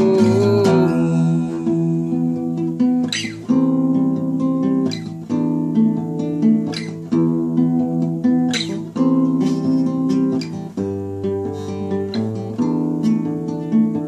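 Acoustic guitar strummed in a slow chord progression, an instrumental break in an unplugged song, with a strum roughly every second and a half to two seconds.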